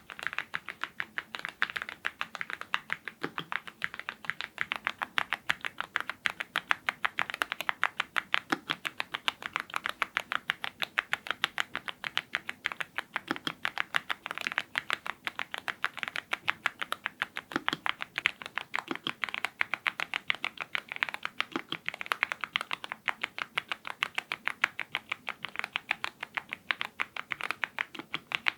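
YUNZII IF99 full-size mechanical keyboard fitted with lubed Gateron Ink Red linear switches, typed on continuously at a fast, steady pace.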